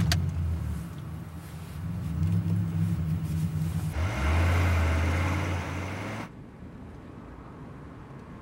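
Car engine starting up and pulling away, running louder and higher over the first few seconds. About six seconds in the sound drops abruptly to a quieter, steady hum of the car under way.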